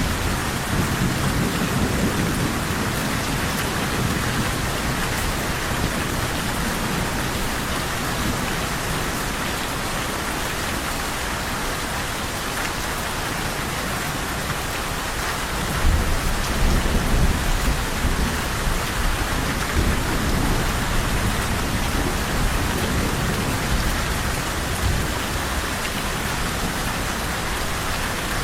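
Steady heavy rain with thunder rumbling low. The thunder is faint in the first few seconds and comes in louder a little past halfway.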